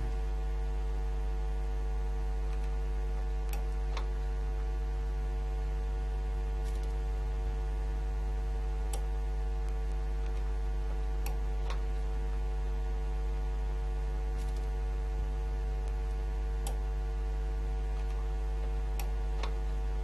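A steady low hum with a stack of steady tones above it, and about ten faint clicks scattered through it.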